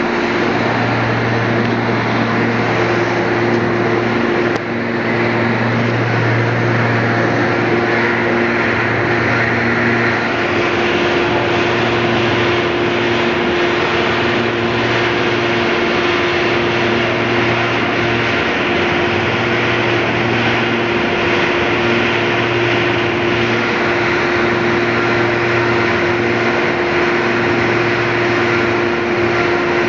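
Stevia leaf dryer machinery running: a loud, steady rush of a blower and burner with a constant hum, and a lower hum that cuts in and out every few seconds.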